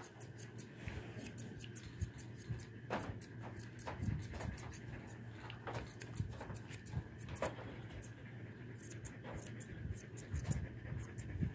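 Grooming shears snipping through a standard poodle's coat: a quick run of short, crisp blade snips, several a second, over a steady low hum.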